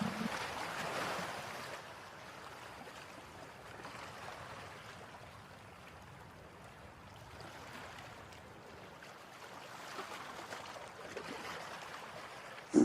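Faint steady rushing hiss with no clear pitch, like running water or surf, louder for the first second or two and then fading to a low level.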